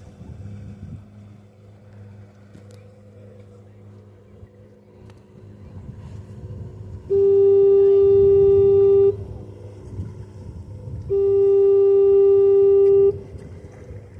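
Grand Haven fog horn sounding twice, two steady two-second blasts on one low pitch, two seconds apart, over a low rumble.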